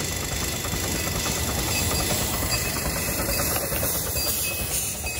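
The Little Puffer miniature steam train running, a steady dense noise without clear breaks.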